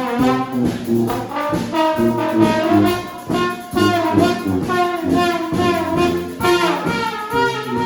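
Brass band playing live: several horns sounding changing notes together over a steady beat.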